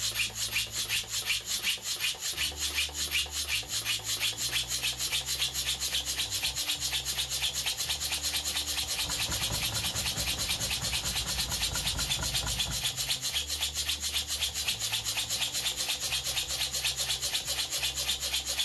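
Homemade triple-expansion steam engine running, its exhaust giving a rhythmic hissing chuff. The beat quickens over the first few seconds and then holds steady and fast.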